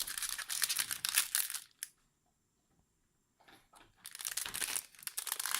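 Foil booster-pack wrapper crinkling and tearing as a trading-card pack is handled and opened, with a pause of near silence about two seconds in before the crinkling starts again.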